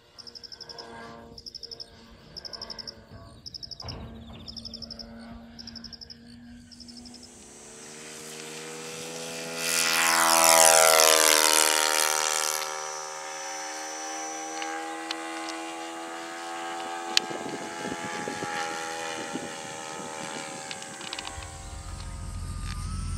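An engine-powered FLASH RS model plane flying past overhead: its buzzing engine note swells, is loudest a few seconds in, and drops in pitch as it passes, then carries on more quietly as it flies away. Before it, insects chirp in short pulses about once a second.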